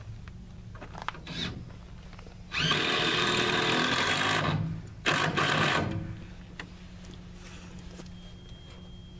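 Power drill driving a screw into a wooden roof rafter: one run of about two seconds, a brief stop, then a second, shorter run.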